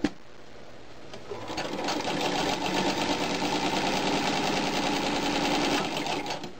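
1937 Singer Model 127 sewing machine, driven by its electric motor, stitching through fabric. A single sharp click comes at the very start. About a second in, the machine speeds up, runs steadily with rapid needle strokes, and slows to a stop near the end.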